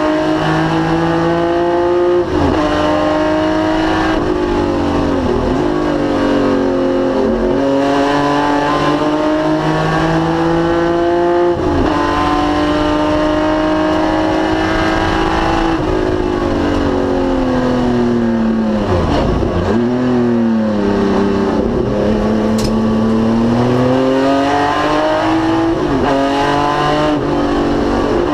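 1973 BMW CSL Group 2 race car's straight-six engine at full racing pace. Its pitch climbs and drops sharply several times as it shifts up through the gears, then falls away to a deep low point about two-thirds through and climbs again through the gears.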